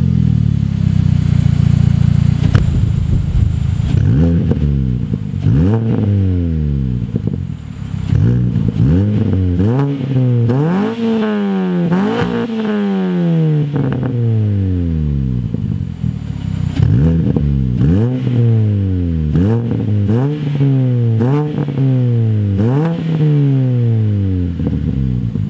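2006 Mini Cooper's four-cylinder engine being revved through catless Megan Racing headers and cat-back exhaust: a steadier first few seconds, then repeated throttle blips, each rising quickly and falling away, about one every one and a half to two seconds.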